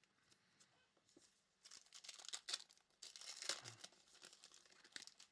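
A foil trading-card pack being torn open and its wrapper crinkled, in two bursts of crackling, the first about a second and a half in and the second about three seconds in.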